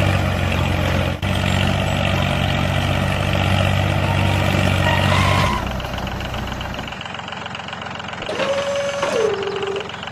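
Small motor running steadily with a low hum; it drops away about five and a half seconds in and cuts out about seven seconds in. A short wavering tone follows near the end.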